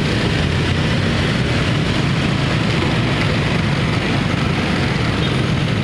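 Steady road traffic noise with a low engine hum from vehicles moving through the street.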